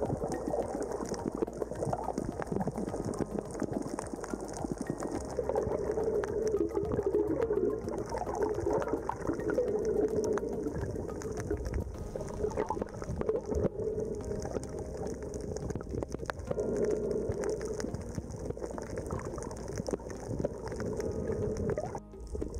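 Muffled underwater water noise recorded with the camera submerged, full of bubbling and fine crackling clicks.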